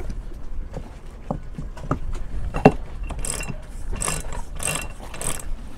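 Lewmar sailboat winch drum turned by hand, its pawls clicking against the ratchet: a few separate clicks at first, then a quicker, regular run of clicks from about halfway. This is a test of the winch after reassembly with a remade gear, and it sounds right.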